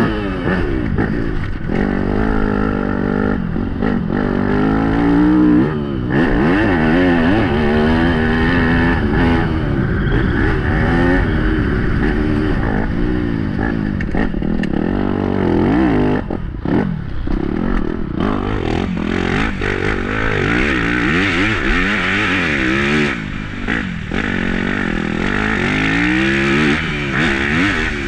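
Yamaha YZ250F's 250 cc four-stroke single-cylinder engine revving hard and dropping back over and over as the motocross bike is ridden around a dirt track. The pitch climbs through each gear and falls as the throttle is shut.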